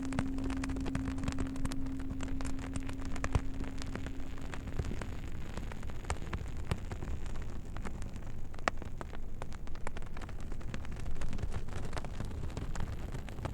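Campfire crackling and popping steadily, with a low singing bowl tone ringing under it that dies away about five seconds in.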